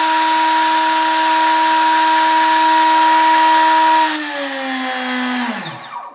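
Homemade CNC router spindle driven by a Turnigy 600 brushless RC helicopter motor, running at about 12,000 RPM with a steady high whine. A little after four seconds the pitch drops, and about a second later it winds down and stops near the end.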